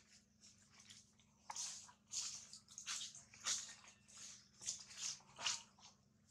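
Macaques grooming and shifting on dry leaf litter: a series of short, irregular rustles and soft clicks, with a few louder ones about three and a half and five and a half seconds in.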